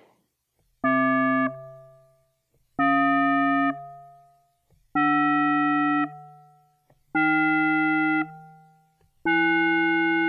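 Steinberg Retrologue software synthesizer playing five single notes of a rising chromatic scale, from C3 up to E3, each a semitone higher than the last. The notes come about every two seconds, all at the same loudness from a fixed velocity of 100. Each is held for under a second and then fades out.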